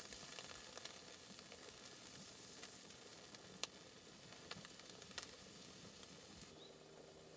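Faint steady sizzling hiss with scattered sharp pops, from a pot of rice cooking on a wood-burning stove.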